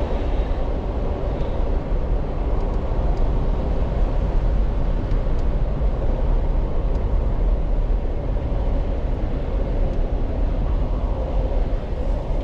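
Steady road and engine noise of a car driving, heard from inside the cabin, with a faint constant hum.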